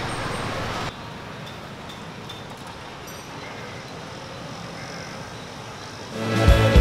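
Street ambience: a louder stretch cuts off abruptly about a second in, then a steady hum of distant traffic with a few faint high chirps. Background music with a beat comes in near the end.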